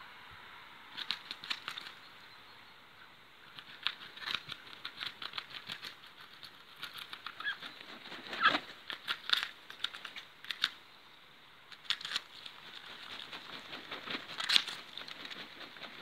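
Muscovy ducks flapping their wings, in several short flurries of quick wingbeats with gaps between them. The loudest flurries come about halfway through and again near the end.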